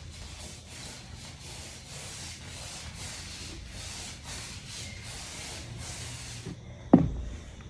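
Kilz stain-blocking primer being worked onto a water-stained ceiling patch: a steady, rhythmic rubbing hiss that stops about six and a half seconds in, followed by one sharp knock.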